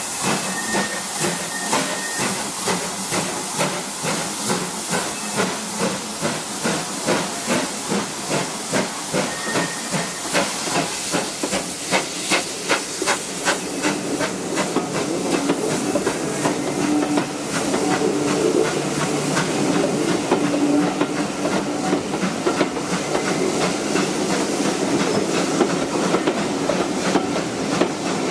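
Steam locomotive working, its exhaust beats coming regularly about one and a half times a second amid hissing steam. From about two-thirds of the way through the sound grows louder and denser as the train draws near.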